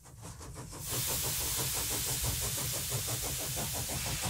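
Steam engine running with a quick, even chuffing beat under a steady hiss of steam, fading in over the first second.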